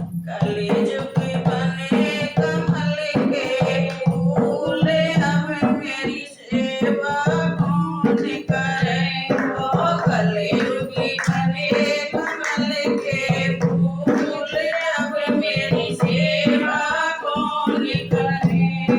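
Devotional bhajan: a voice singing over instrumental accompaniment with percussion strokes.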